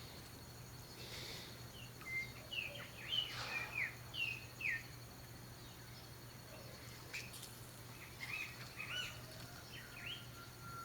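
Orioles (calandrias) singing: two runs of quick, clear whistled notes, the first about two seconds in lasting a few seconds, the second shorter, near eight seconds in.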